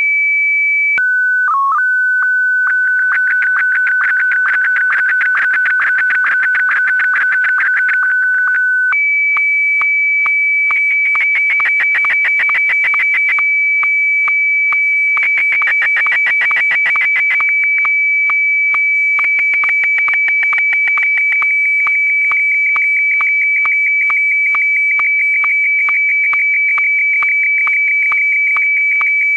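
Electronic music made of a loud, steady, high-pitched sine-like tone with dense, rapid clicking pulses over it. The tone drops lower about a second in and jumps back up about a third of the way through, while the clicks thicken and thin in sections.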